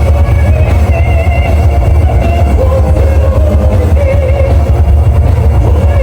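Loud rock music with a heavy bass and a wavering melody line, sung or played on lead guitar.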